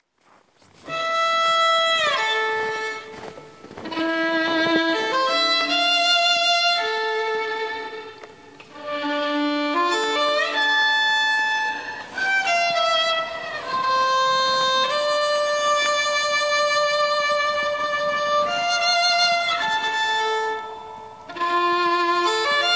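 Background music: a slow bowed fiddle melody, the notes held with vibrato and sliding between pitches, in phrases with short pauses. It fades in over the first second.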